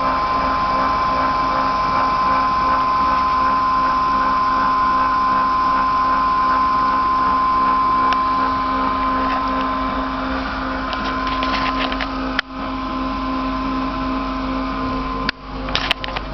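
Homemade CNC machine running with a steady high whine and a lower hum. The whine fades out about two-thirds of the way through, and a few clicks follow near the end.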